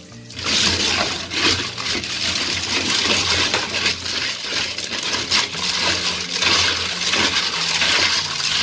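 Tap water splashing into a plastic colander of blood cockles while hands scrub them, the shells clattering and clinking against one another. This is mud being washed off fresh cockles.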